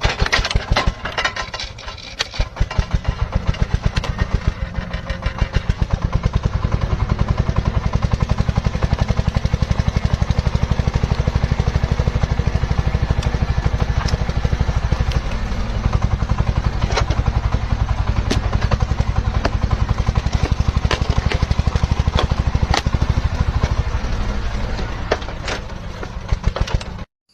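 An engine running steadily with a rapid, even beat, cutting off suddenly near the end.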